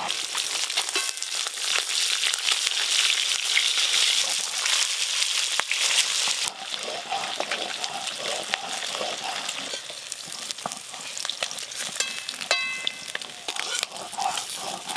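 Katla fish pieces frying in hot mustard oil in a kadai, a steady sizzle and spatter with crackles. The sizzle is loudest at first and drops noticeably about six and a half seconds in.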